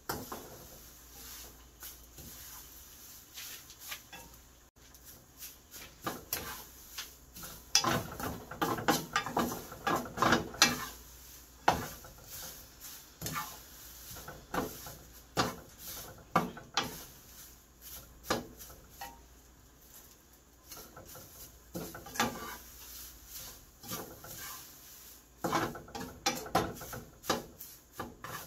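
Wooden spatula and wooden spoon scraping and knocking against a frying pan while stir-frying crumbled seasoned laver. The scrapes and clicks come irregularly, busiest about eight to eleven seconds in and again near the end.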